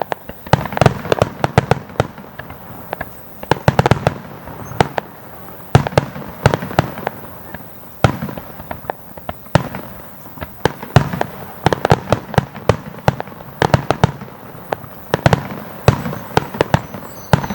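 Aerial fireworks exploding in rapid volleys: clusters of sharp, loud bangs and crackles that come in waves every second or two.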